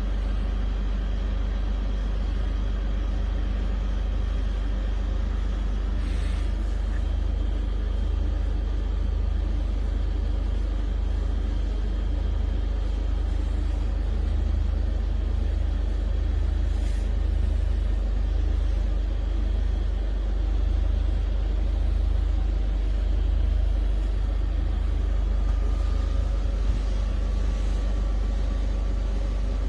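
Steady low rumble of a motor vehicle, running evenly at a constant level throughout.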